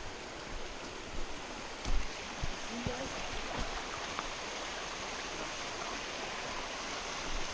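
A mountain stream running steadily, an even rush of flowing water, with a couple of brief soft knocks about two seconds in.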